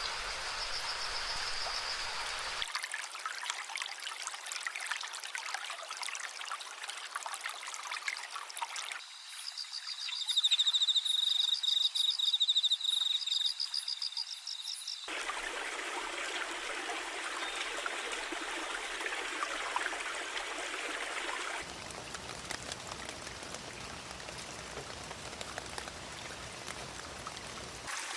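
Rushing water of a small waterfall, heard across several spliced clips that change abruptly in tone. In the middle stretch a louder, rapid pulsing high-pitched call sounds over the water.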